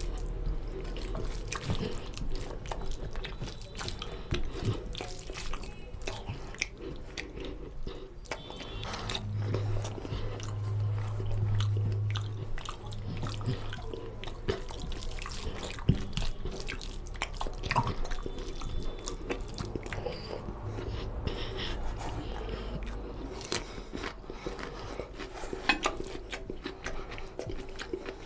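Close-miked eating by hand: wet chewing and lip-smacking of mutton curry and rice, with many small clicks and squelches as fingers work the rice into the oily gravy. A low hum sounds for a few seconds midway.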